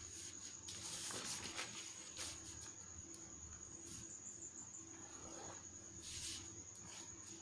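Quiet paper handling and a ballpoint pen writing on a sheet, heard as a few brief scratchy rustles, over a steady high-pitched background tone.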